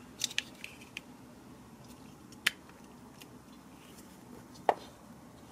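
Sharp plastic clicks and taps from a Transformers action figure being handled: a quick cluster in the first second, then single clicks about halfway through and near the end, as the small Titan Master figure is fitted into the plane-mode cockpit.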